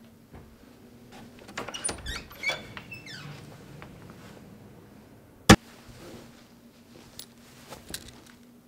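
Door and handling noises: a few knocks and clicks in the first three seconds, then one sharp, loud click about five and a half seconds in, like a door latch snapping shut, with a couple of fainter clicks near the end.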